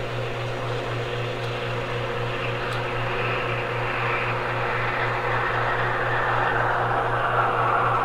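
Nuova Simonelli Appia Life espresso machine's automatic steam wand steaming milk in a pitcher: a steady hiss with a low hum beneath, growing slightly louder and higher toward the end. The wand is set to shut off by itself.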